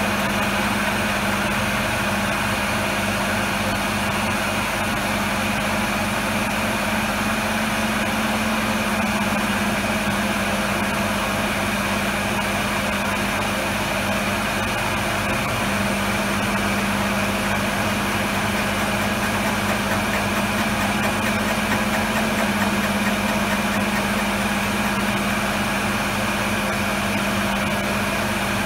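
MAHO MH400E milling machine running a thread-milling pass, its spindle turning a single-point HSS boring bar at 250 rpm through cast iron. The machine gives a steady hum with a higher whine above it.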